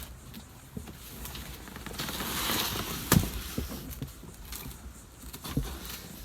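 Rustling and handling of a cardboard box and packaging during unpacking, with scattered small clicks, a swell of rustling about two seconds in, and one sharp knock about three seconds in.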